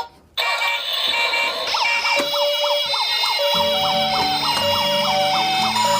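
Battery-operated toy's electronic sound chip playing a fast warbling siren over beeping tones, with a tinny low tune joining about halfway through.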